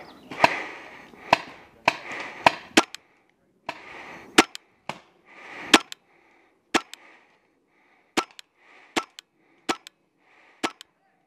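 Paintball markers firing single shots, about fifteen sharp pops at an irregular pace with the loudest in the first half.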